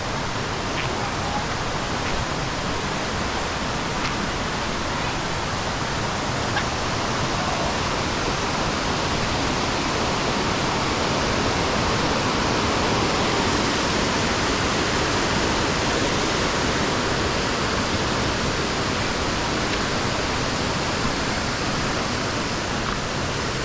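Waterfall pouring: a steady, dense rush of falling water that swells slightly about halfway through.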